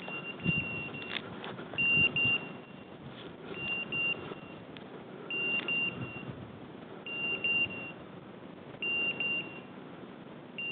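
Hunting dog's beeper collar sounding short high beeps in quick groups of two or three, about every two seconds. This is the point-mode signal that the dog is holding on point. Rustling and footsteps in dry scrub run underneath.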